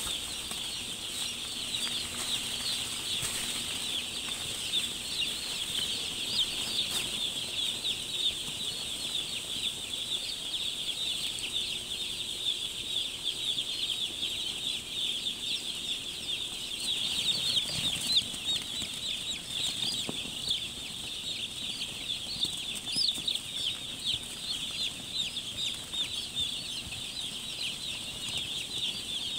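Thousands of young chicks peeping at once in a brooder house: a dense, continuous chorus of high cheeps.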